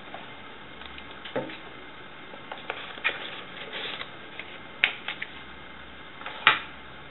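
Cardboard packaging being handled: a cardboard tray insert slid out of its box and set down on a table, with rustling scrapes and several sharp taps, the sharpest about five and six and a half seconds in.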